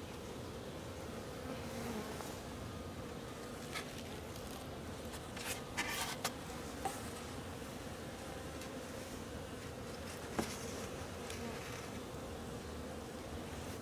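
Honeybees buzzing steadily around an opened wintering hive, flying out on a mild day. A few short clicks sound around six seconds in and once near ten seconds.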